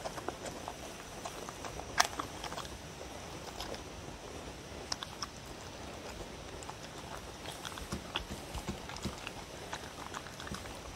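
A dog eating soft food (ground meat, egg, chopped vegetables) from a wooden bowl: irregular wet chewing and mouthing clicks, with one sharp click about two seconds in.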